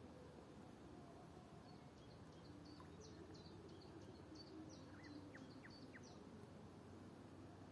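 A faint songbird singing a run of short, high repeated notes, with a few quicker lower notes near the middle, over a low steady background hum.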